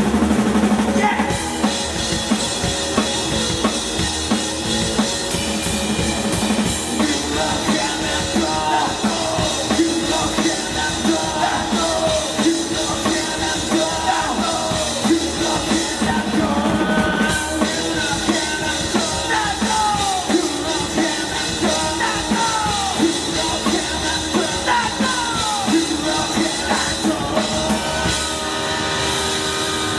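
A rock band playing live: a drum kit keeps a steady beat with regular hits under electric guitar, with gliding pitched lines over the top.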